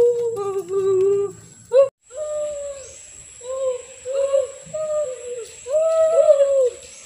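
Children's voices making short, wordless calls and hoots that rise and fall in pitch, one after another. A brief silent break comes about two seconds in.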